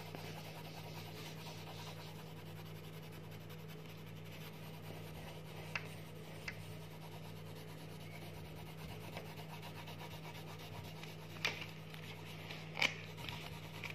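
Coloured pencils scribbling on a colouring-book page: a faint, steady rubbing, with a few light taps.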